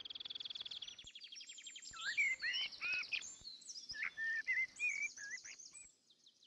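Songbirds chirping. A fast trill comes first, then a run of short rising and falling chirps and twitters, which stop near the end.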